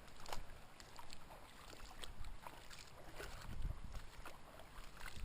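Footsteps wading into a shallow creek: irregular splashes and sloshing with scattered scrapes and knocks as someone steps down the bank into the water.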